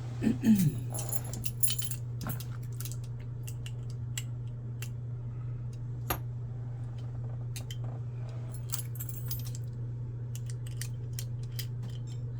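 Small metal lock-picking tools and a lever lock being handled: scattered light metallic clicks and jingles, with a steady low hum underneath.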